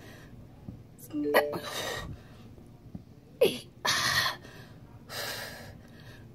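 A woman breathing hard and gasping from the strain of doing push-ups: four heavy breaths, with a short strained vocal sound about a second in and another, falling in pitch, about halfway through.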